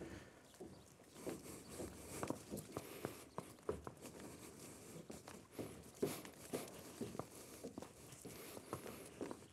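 Faint, irregular soft knocks and scuffs, a few louder than the rest: a young horse shifting its hooves on a horse trailer's loading ramp.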